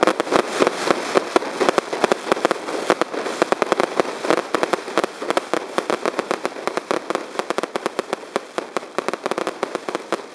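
Fireworks barrage: many aerial shells bursting together into white crackling stars. The result is a dense, continuous crackle of rapid sharp pops, many each second.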